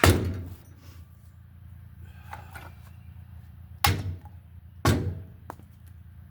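Three loud, sharp knocks: one at the start and two about a second apart near the middle, followed by a faint tick, over a low steady hum.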